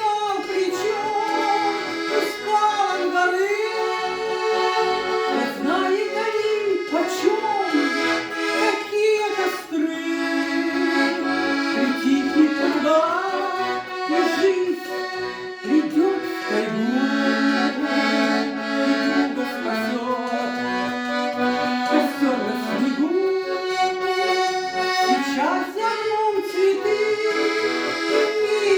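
Accordion playing a melody over sustained chords, an instrumental passage of a song.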